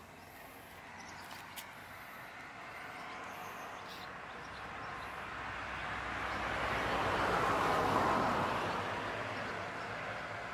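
A vehicle passing by: a steady rush of noise that swells slowly to its loudest about eight seconds in, then fades.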